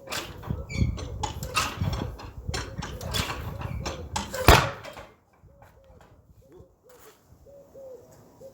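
Farmall Super A's four-cylinder engine turning over unevenly on its open exhaust pipe, then a single sharp backfire bang about four and a half seconds in, after which it stops. The owner suspects ignition trouble in the points.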